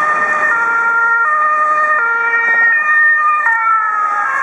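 German two-tone sirens of fire brigade vehicles on an emergency run: several sirens overlapping out of step, each switching between a high and a low tone about every three-quarters of a second. Near the end the tones slide lower, over a background of traffic noise.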